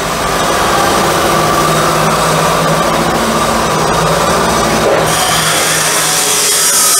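Steady mechanical hum of a running motor, with a higher hiss joining about five seconds in.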